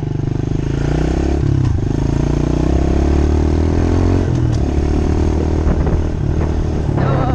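A 2018 Honda CRF110 pit bike's small single-cylinder four-stroke engine running under way on a dirt trail, heard from a helmet-mounted camera. Its pitch drops and climbs again a couple of times as the ride goes on.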